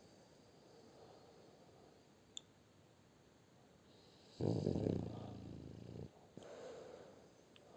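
French bulldog snoring in its sleep: a few seconds of soft, noisy breathing, then one loud, low snore about four and a half seconds in that lasts under two seconds, followed by a softer breath.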